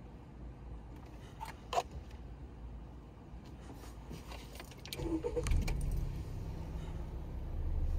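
A few clicks and a light jangle of car keys, then about five seconds in the Honda Civic's engine starts and settles into a steady idle.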